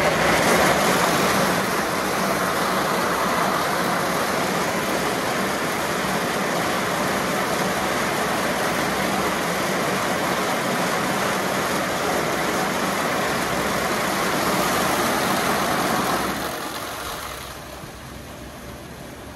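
Automatic car wash equipment running: a loud, steady rushing hiss with a low hum beneath it, which fades away about sixteen seconds in.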